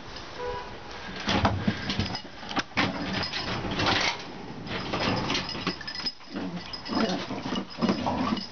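A dog barking and growling in irregular bursts.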